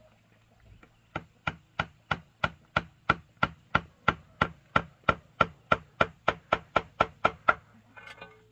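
A blade chopping steadily, about three even strokes a second for some six seconds, then a brief rustle near the end.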